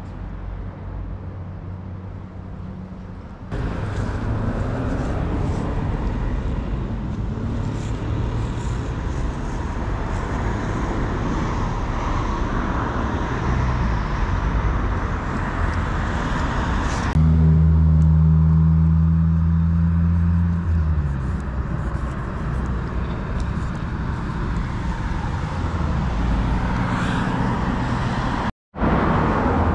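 Outdoor street noise with motor traffic, in several cut-together stretches; a motor vehicle's engine hums loudly for about three seconds around the middle.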